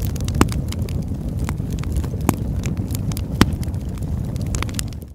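Wood fire crackling and popping over a steady low rumble of burning, with irregular sharp pops, the loudest about three and a half seconds in.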